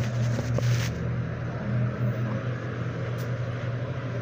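A steady low machine hum, unchanging throughout, with rustling and knocks from handling in the first second.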